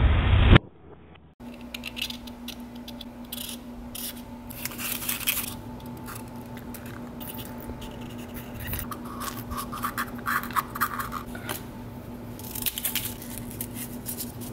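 A loud crash cuts off about half a second in. Then comes close-up handling of a cardboard template: scratching and rubbing as it is pressed around a compressor crank and marked, and scissors snipping the cardboard near the end, all over a steady faint hum.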